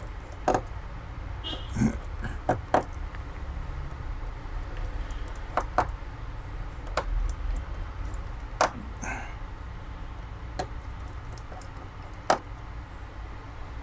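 Scattered sharp clicks and light taps, about a dozen spread irregularly, from small tools and phone parts being handled while a smartphone is screwed back together, over a low steady hum.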